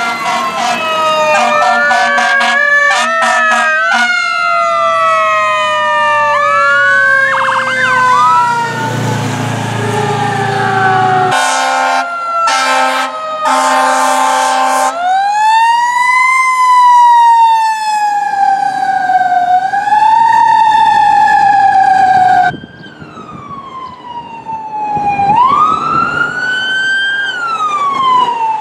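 Fire apparatus sirens: electronic sirens wailing in slow rises and falls and yelping in fast sweeps, with a few short air horn blasts about halfway through. The sound drops off suddenly about three quarters of the way in, and a new siren winds up near the end.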